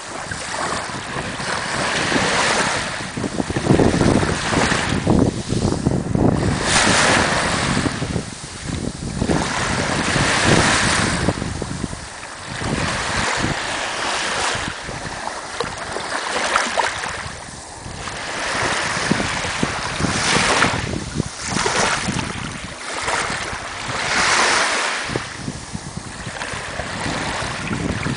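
Small waves breaking and washing over sand at the water's edge, each wash swelling and drawing back every three to four seconds, with wind buffeting the microphone.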